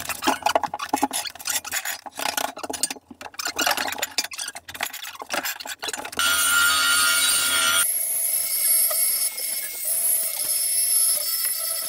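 Metal clanking and scraping as a steel exhaust muffler is worked into place under a Land Rover Discovery 3, with many irregular knocks. About six seconds in this gives way to a steady hiss with a thin high whine.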